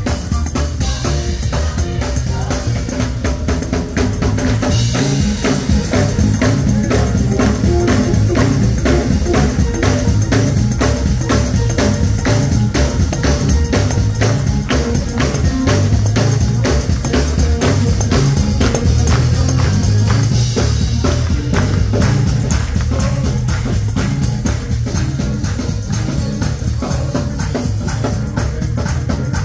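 Live gospel band music: drum kit and tambourine keep a fast, steady beat over a heavy bass line.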